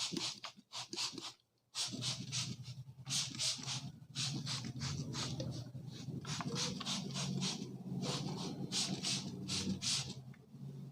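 Fingers rubbing and scratching through hair on the scalp during a head massage, in quick repeated strokes about three a second, with a brief pause about a second and a half in. A steady low hum runs beneath.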